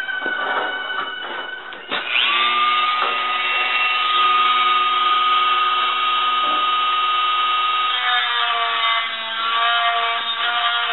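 A Dremel rotary tool with a small abrasive wheel grinds the overlapping steel off the back of a gas-welded fender patch. Its high motor whine jumps up in pitch about two seconds in and then runs steadily. About eight seconds in the pitch drops lower.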